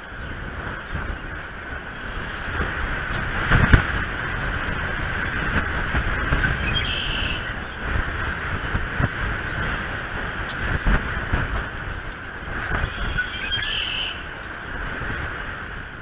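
Wind gusting against an outdoor nest-cam microphone, rumbling in swells with the strongest gust about four seconds in, over a steady hiss of rain. Two brief high-pitched sounds come through about seven and thirteen seconds in.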